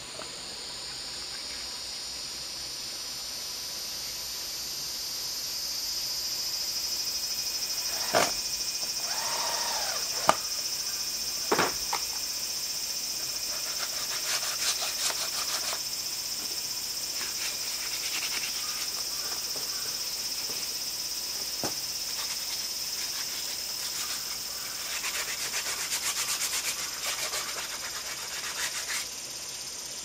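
Steady high-pitched drone of insects, with a few sharp knocks about eight to twelve seconds in and a spell of light clattering near the end.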